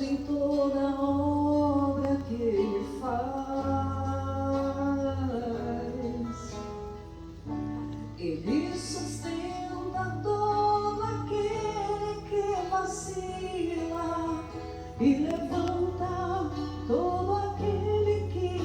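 Sung devotional music: a voice holding long, gliding notes over instrumental accompaniment with a sustained low bass line.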